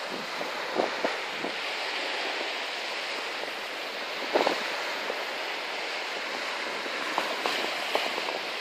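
Small waves washing onto a sandy beach, a steady hiss of surf, with a few short soft knocks about a second in and again about four and a half seconds in.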